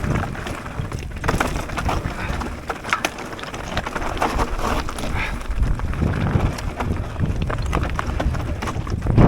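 Mountain bike ridden down a dirt trail: tyres running over roots and stones, with the bike rattling and many sharp knocks and clicks over a low rumble of wind on the microphone.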